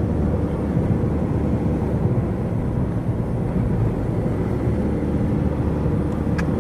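Steady road and engine noise of a 2007 Kia Carnival minivan cruising on the highway.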